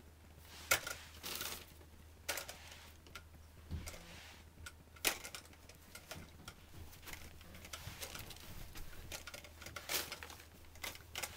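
Newspaper rustling and crackling in irregular bursts, with scattered sharp clicks and knocks, as used newspaper sheets are gathered up off the floor.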